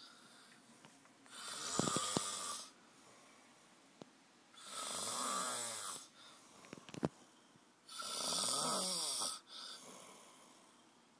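A sleeping man snoring very loudly: three long, rough snores about three seconds apart, each lasting about a second and a half, with much quieter breathing between them.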